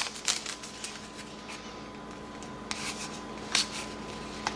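2012 Topps WWE Heritage trading cards being handled and slid against one another as a freshly opened pack is sorted. There is a flurry of papery rustles and ticks at the start, then a few single light clicks of card edges over a faint steady hum.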